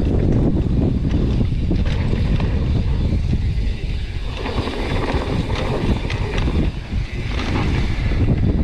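Gale-force wind buffeting a GoPro microphone, a heavy, gusting low rumble, with scattered clicks and rattles from a mountain bike on a rough trail.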